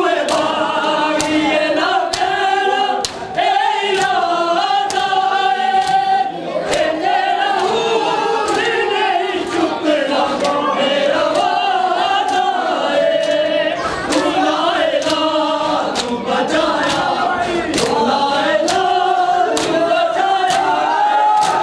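Men's voices chanting a noha together, with sharp slaps of hands striking bare chests (matam) keeping a steady beat about every three-quarters of a second.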